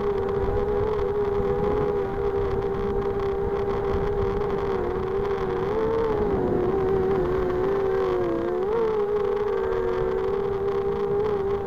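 Four RCX H1806 2400kv brushless motors spinning Gemfan 5x3 props on a 250 FPV racing quadcopter in flight: a steady high whine of two close tones that wavers, dips and climbs again with the throttle in the middle. A low rush of wind on the onboard camera's microphone lies under it.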